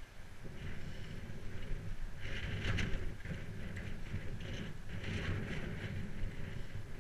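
Wind rushing over a GoPro's microphone and the rumble of bicycle tyres over a muddy grass towpath, with short hissy swishes coming and going several times.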